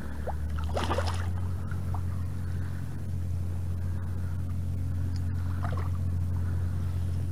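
A steady low hum runs throughout under a faint even hiss, with a few brief faint higher sounds.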